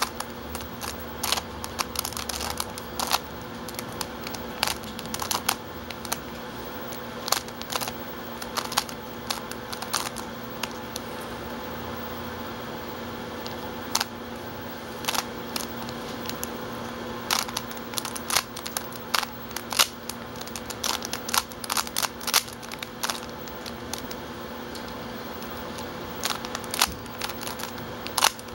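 Plastic 3x3 Rubik's cube being turned by hand, its layers clicking in quick irregular bursts and single snaps as the bottom layer is worked; the cube is lubricated with vegetable oil.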